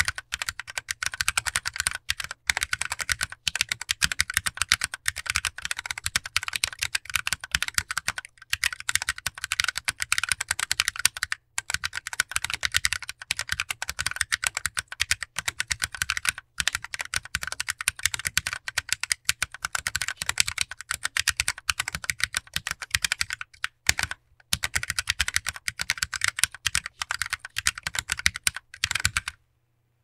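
Fast, steady typing on a handwired 36-key mechanical keyboard with stock, unlubed Akko Sponge tactile switches in a solid 3D-printed case: a dense run of key clacks with a few brief pauses, stopping shortly before the end.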